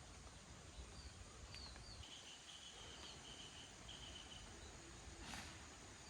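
Faint outdoor ambience with a steady low hiss, a few small high chirps and a short chattering trill from a small animal, then a brief soft rustle near the end.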